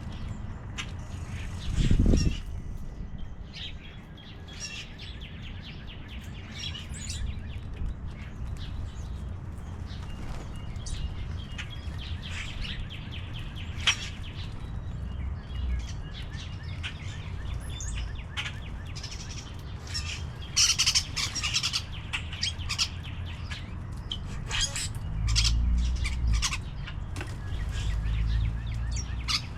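Wild birds chirping and calling at a feeder, many short high notes scattered throughout. A dull low thump about two seconds in, and a low rumble near the end.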